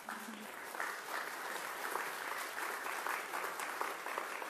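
Audience applauding: many hands clapping together, starting abruptly and holding steady.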